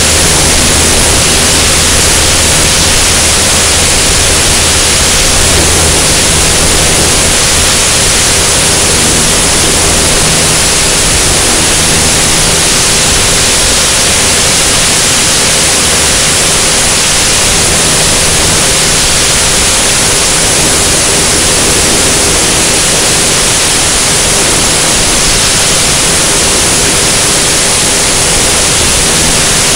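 Loud, steady rush of airflow over a camera mounted outside on a single-engine high-wing light airplane in flight, with the low, steady drone of the piston engine and propeller underneath.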